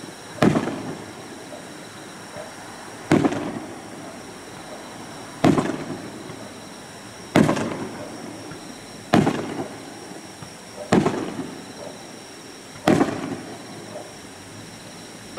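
Aerial firework shells bursting, seven sharp booms about two seconds apart, each trailing off in a rolling echo.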